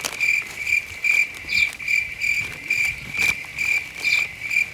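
Insect chirping steadily in a high, even pulse about two and a half times a second, typical of a cricket. A faint click comes about three seconds in.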